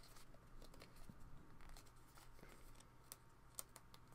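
Near silence with faint paper handling: a sheet of planner tab stickers being handled, with a few soft clicks about three seconds in.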